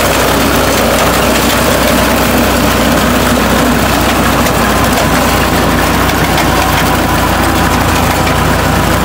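Tractor engine running steadily and loudly as the tractor drives a working implement through field stubble.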